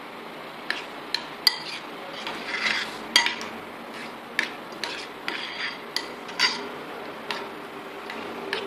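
A spoon stirring yogurt raita in a bowl, clinking and knocking against the bowl at irregular intervals with short scraping sounds in between.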